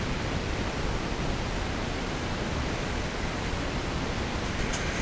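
Steady wind buffeting the microphone, blended with the wash of small waves on a shingle beach. A faint click near the end.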